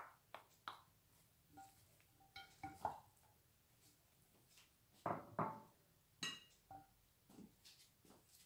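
A wooden spoon knocking and scraping against glass bowls while diced carrots are spooned into a pasta salad and stirred: scattered quiet knocks and clinks, a few ringing briefly like glass, the loudest a little after five seconds in and a ringing clink about six seconds in.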